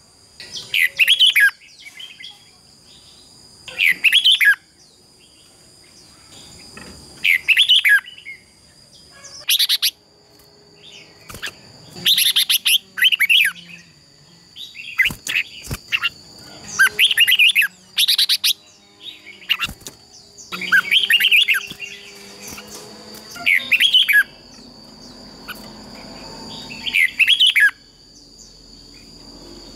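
Red-whiskered bulbuls singing their loud contest song: short, bright warbled phrases every two to three seconds. A steady thin high-pitched tone runs underneath.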